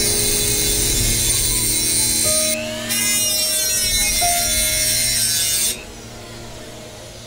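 Handheld rotary tool with a cutoff disc grinding through thin sheet steel, a steady high grinding whine that shifts in pitch as the disc is loaded. The cut stops about two-thirds of the way in and the sound drops to a much quieter level.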